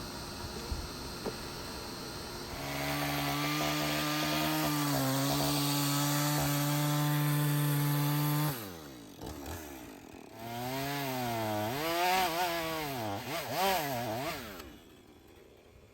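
Chainsaw running. About two and a half seconds in it comes up to a steady high speed and holds it for several seconds, then drops back. After that it revs with its pitch rising and falling, and cuts off shortly before the end.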